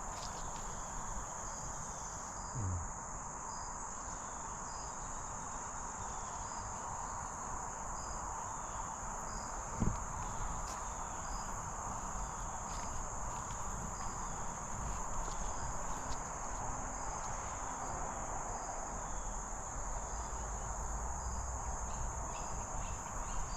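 Insects trilling in the woods, a steady high-pitched drone without a break, with a couple of soft knocks.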